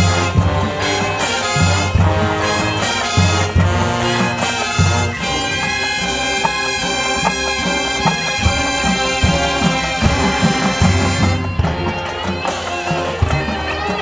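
High school marching band playing a rock-style show: brass over drums and front-ensemble percussion, with a strong low beat that thins out for a few seconds midway and then returns.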